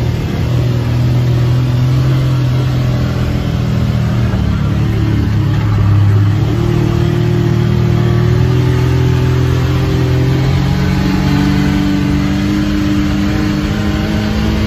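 Arctic Cat Wildcat XX side-by-side's twin-cylinder engine running under way at a fairly steady speed, heard from the open cab, its pitch stepping up a little about two-thirds of the way through.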